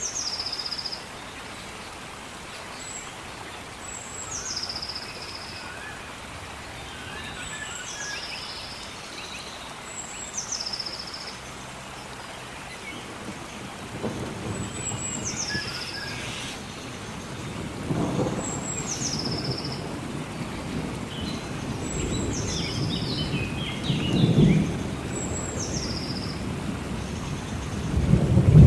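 Steady rain with thunder rumbling, the rolls growing stronger through the second half and loudest near the end. A bird repeats a high call every two to three seconds, each a quick downward slide ending in a short trill.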